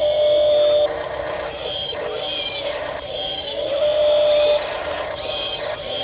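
Electric drive motors and gears of a toy RC wheel loader whining as it drives, rising to a louder steady whine in short spells of under a second, twice.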